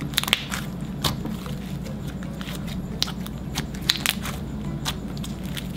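Thick, putty-like slime, stiffened by mixed-in gold powder, being squeezed and kneaded by hand, giving irregular small clicks and crackles.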